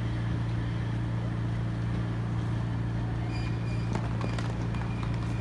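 Urban street ambience at a tram stop: a steady low hum under traffic noise. From about three and a half seconds in, a run of footsteps clicks on the paved platform as people walk past.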